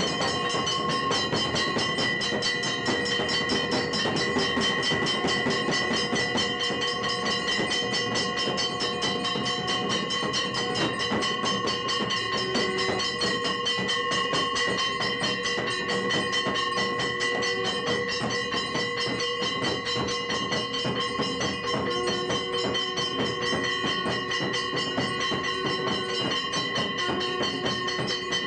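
Temple bells and cymbals ringing and clashing rapidly and without a break for an aarti, a dense, steady metallic din with ringing tones held throughout.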